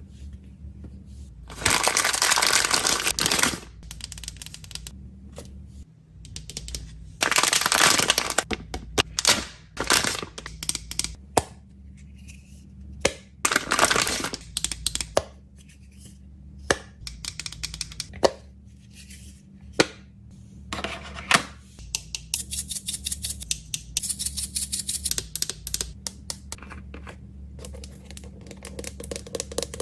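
Packing sounds from hand-handled plastic packaging. There are three long stretches of tearing and crinkling and many sharp small clicks and taps, with a fast run of clicks near the end.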